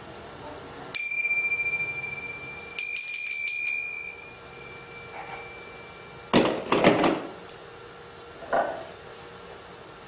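A small bell struck once about a second in and left ringing, then rung in a quick run of about five strikes, the ring fading out over the next few seconds. A couple of short loud rustling noises follow.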